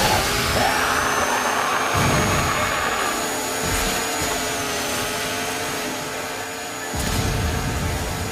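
Chainsaw engines running hard and revving, with a whine that rises at the start and then holds steady, and heavy thuds about two seconds in and again near the end.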